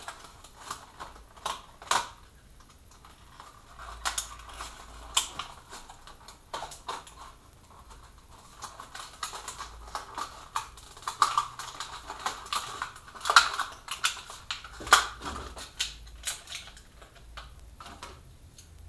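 Slot-car packaging being opened and handled by hand: irregular sharp plastic clicks and taps with some crinkling, the loudest cluster about two-thirds of the way through.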